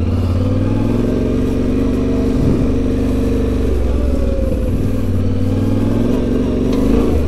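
Yamaha Ténéré 700's parallel-twin engine running at low revs off-road, its note rising and falling with the throttle as the bike works through a small ditch, with a brief dip about two and a half seconds in.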